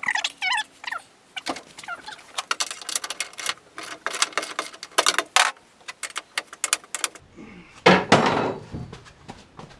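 Car door being worked on its freshly refitted hinges: squeaky creaks at first, then a run of sharp metallic clicks and knocks, a loud rushing swing about eight seconds in and a thump at the very end as the door is shut to check its alignment.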